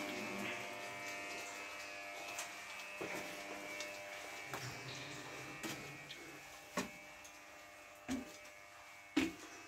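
A steady buzzing hum made of several fixed tones, slowly fading, with a few short knocks in the second half.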